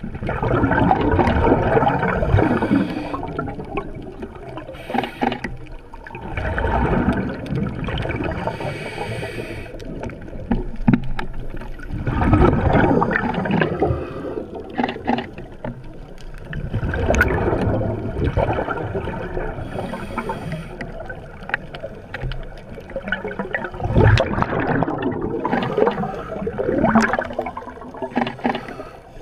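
Scuba divers' open-circuit regulator breathing underwater: exhaled bubbles gurgling out in a loud burst every five seconds or so, with a lower watery rush in between.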